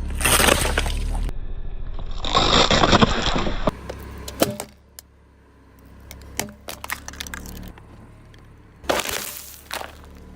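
Objects cracking and crunching as a car tyre crushes them, in several separate cuts. There are loud crunching bursts at the start and about two seconds in, then a run of sharp cracks and snaps, and another short loud crunch about nine seconds in.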